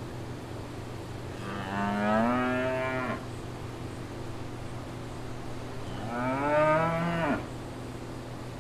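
A cow mooing twice, each moo about a second and a half long, the second rising in pitch.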